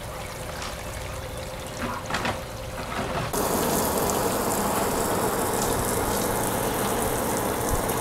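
Water spraying from a garden hose nozzle onto river pebbles: a steady hiss that starts abruptly about three seconds in, after fainter splashing of water.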